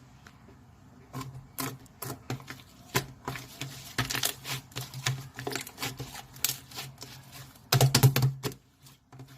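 Quick, irregular clicking and tapping, like fingers on keys or a hard surface. It starts about a second in and packs into a loud flurry about eight seconds in.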